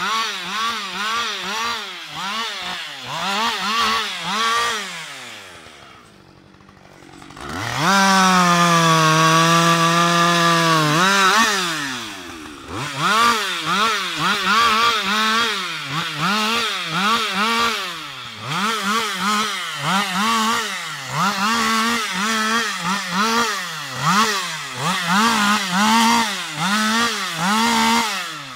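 Husqvarna 560XP two-stroke chainsaw limbing a felled tree: the engine revs up and drops back in quick bursts, more than once a second, as branches are cut off. About five seconds in it falls to a quiet idle, then is held at high revs through a longer cut for about three seconds before the quick revving resumes.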